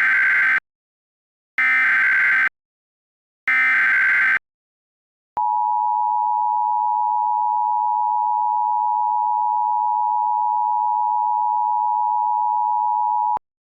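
Emergency Alert System SAME header: three short, harsh digital data bursts about two seconds apart. These are followed by the EAS attention signal, a steady two-tone alert held for about eight seconds and then cut off sharply, announcing an emergency alert message.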